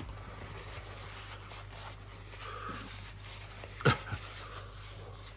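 Quiet breathing through the mouth from a man whose mouth is burning from a superhot chili pepper, with a short sharp click about four seconds in.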